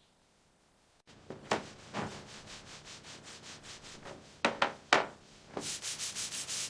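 Hand sanding: quick back-and-forth rubbing strokes, about three to four a second, starting abruptly about a second in, with a few louder, sharper scrapes around four to five seconds in.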